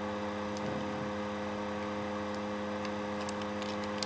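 A few faint clicks of an old Rubik's cube being turned, over a steady hum.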